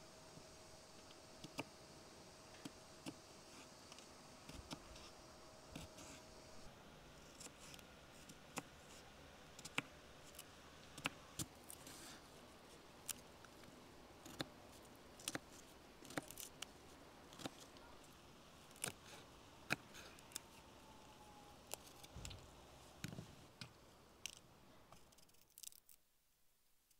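Hand preparation of vegetables: a kitchen knife cutting onion on a wooden board and fresh celery stalks being snapped and stripped of their leaves, giving a string of sharp, irregular clicks and snaps, about one or two a second, that stop near the end.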